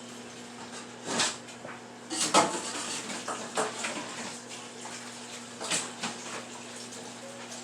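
Dishes and metal utensils clattering and clinking at a kitchen sink: several separate knocks, the loudest about two seconds in, over a faint steady hum.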